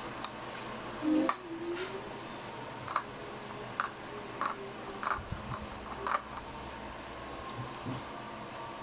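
A plastic spoon clicking and tapping against a plastic bowl: a string of light, sharp clicks spaced about half a second to a second apart, stopping a little after six seconds in.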